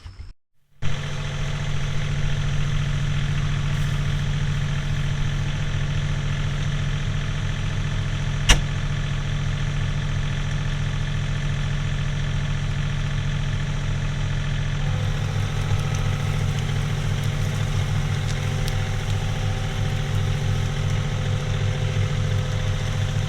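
John Deere 3039R compact tractor's three-cylinder diesel engine running steadily while pulling a middle buster through the potato rows. One sharp knock about eight seconds in, and the engine note shifts slightly about halfway through.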